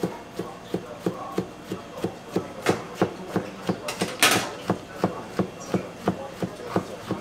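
Chef's knife chopping a roll of thin fried-egg sheets into strips, the blade knocking on a plastic cutting board in a steady rhythm of about three strokes a second. One stroke, a little past four seconds in, is sharper and louder.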